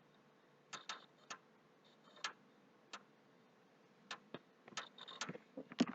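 Sharp, irregular clicks from a PlayStation 3 near its hard drive during a slow, failing boot, sparse at first and coming faster toward the end. The owner thinks they may mean the hard drive is dying.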